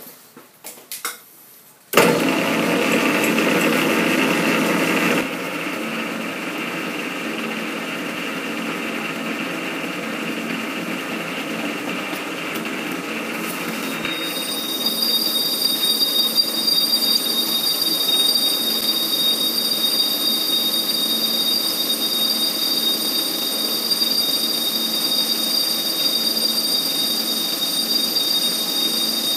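Metal lathe starting up suddenly about two seconds in and running slowly, louder for the first few seconds and then steady. From about halfway, the boring tool bites into the bore of the clutch hub and a steady high-pitched whine rings over the running lathe as it cuts out the last half-millimetre or so.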